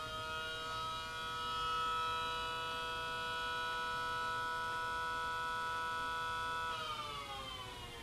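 3D-printed miniature SD10 tornado siren heard through a wall, sounding a steady chord of several tones at full speed. About seven seconds in it winds down, its pitch falling as it fades.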